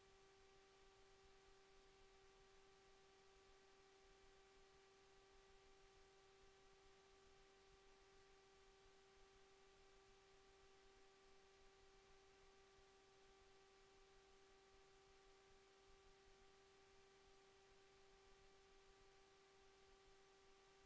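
Near silence, with only a faint steady hum: one unchanging tone with fainter overtones above it.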